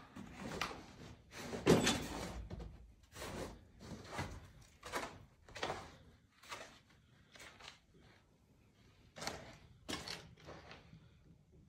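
Footsteps scuffing and knocking on a littered floor at walking pace, about two a second, with a louder thud a little under two seconds in and a short pause near the end.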